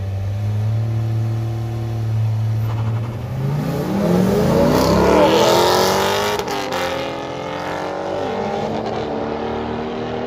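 A Corvette and a BMW in a street drag race: both engines held at steady revs on the line, then launching hard about three seconds in. The engine pitch climbs steeply and drops at upshifts about five and eight seconds in as the cars pull away.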